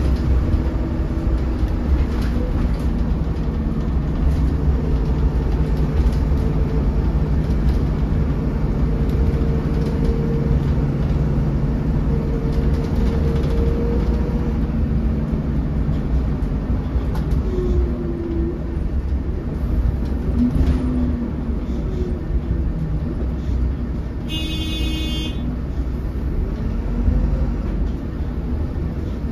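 Cabin of a 2008 MAN 16.240 Designline bus under way: a steady diesel engine and road rumble, with the engine note shifting as the bus speeds up and slows, and light clicks and rattles. A short electronic beep sounds near the end.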